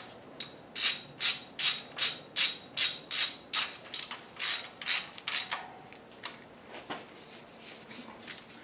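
Hand socket ratchet clicking in steady strokes, about two and a half a second, as bolts are run down on an engine block. It slows and stops about five and a half seconds in, leaving a few faint ticks.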